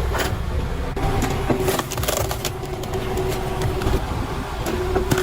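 Engine of a hydraulic log-splitting machine running steadily, with several sharp cracks and knocks as the blade splits wood; a cluster of cracks comes in the first half and two more near the end.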